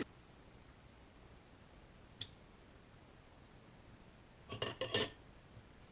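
Kitchenware handled in a small room: a single light click about two seconds in, then a quick run of sharp metal-and-glass clinks with a brief ring near the end.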